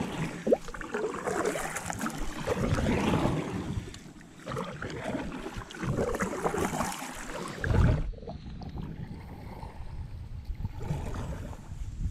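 Kayak paddle strokes: the blades swishing and splashing through river water in a rhythm of roughly one stroke every second or two. About eight seconds in the sound changes abruptly to a quieter, steadier wash of water.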